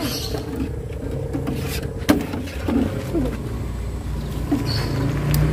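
A few light clinks of a wire noodle strainer and chopsticks against the pot and bowl at a noodle cart, the clearest about two seconds in, over a low steady rumble.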